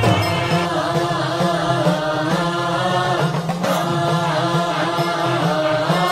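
Devotional chanting over music: voices holding long, wavering notes above a steady low drone.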